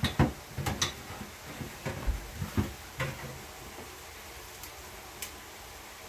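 Light knocks and clicks of kitchen utensils and dishware being handled during cooking, a quick irregular run of them in the first three seconds, then two sharp ticks near the end.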